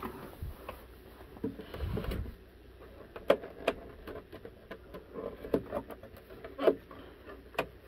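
Hands handling a plastic computer case on a wooden tabletop: a couple of dull thumps about two seconds in, then scattered sharp clicks and taps, the loudest a little over three seconds in and again near six and a half seconds.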